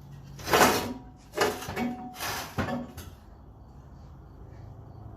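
Clunks and scrapes of heavy metal being shifted: four noisy bursts in the first three seconds, the last ending in a sharp knock. A low steady hum follows.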